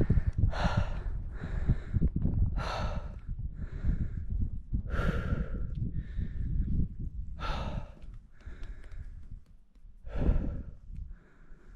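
A person breathing hard and fast, out of breath from climbing a steep slope of loose dune sand, with a loud, noisy breath about every second. A low rumble runs underneath.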